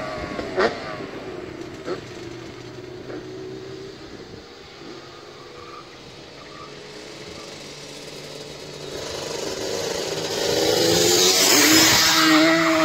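Yamaha Banshee 350 quads' two-stroke twin engines, fitted with aftermarket FMF and Pro Circuit exhausts, revving in the distance, with two sharp cracks in the first two seconds. The engines grow steadily louder from about nine seconds in as the quads ride back, revving hard near the end.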